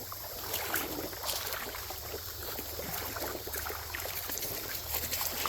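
Shallow creek water trickling and lapping steadily, with scattered small clicks and ticks over it.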